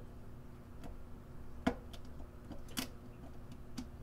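Multimeter probe tips clicking against the metal terminals of a kettle's thermal cutoff switch: about four sharp clicks roughly a second apart, the loudest a little under two seconds in, as the probes are pressed on to find contact through corrosion.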